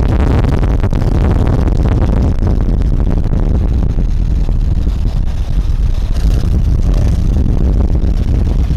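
Vehicle moving along a road at speed, heard as a loud, steady low rumble with wind buffeting the microphone.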